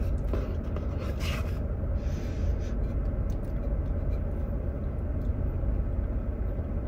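Steady low vehicle rumble inside a Jeep's cabin, with a few faint rustles and clicks, the clearest about a second in.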